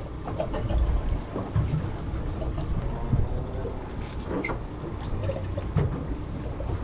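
Outboard motors running at low trolling speed with a steady low rumble, mixed with wind on the microphone, and a few scattered small clicks and knocks.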